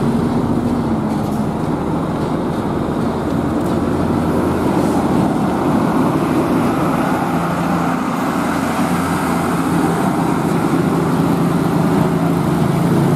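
Road traffic passing close by: a heavy-haul truck pulling a lowbed trailer runs with a steady low engine drone, while cars and motorcycles go past with tyre and engine noise.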